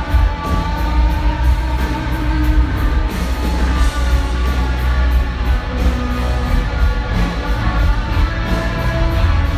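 Hard rock band playing live: electric guitar lines over heavy bass and drums with a steady beat.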